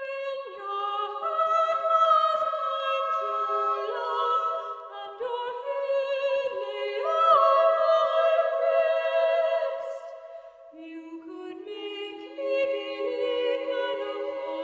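Background music of several sustained voices singing in harmony without instruments, starting suddenly; lower voices join about two-thirds of the way through.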